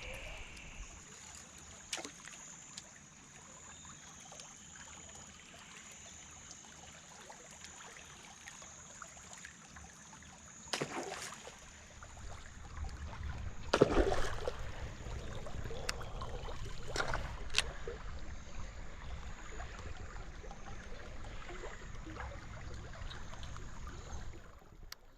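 Water trickling and lapping around a small boat, with a few sharp knocks and a faint steady high whine throughout; a low rumble comes in about halfway.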